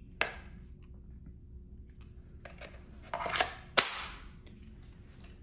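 Hard plastic clicks and a sliding scrape as a 20V lithium-ion battery pack is pushed onto the base of a cordless impact wrench's handle, latching with a sharp click a little before four seconds in.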